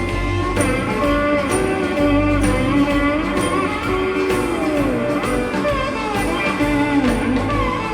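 Live blues-rock band playing an instrumental passage with no vocals: an electric lead guitar plays bending, gliding notes over bass and a steady drum beat with regular cymbal strokes.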